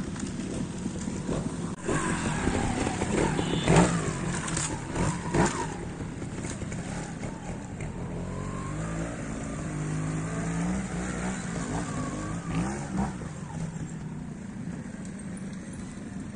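Trials motorcycle engine revving in short bursts and falling back as the bike is ridden over rough ground, with two sharp throttle blips about four and five and a half seconds in.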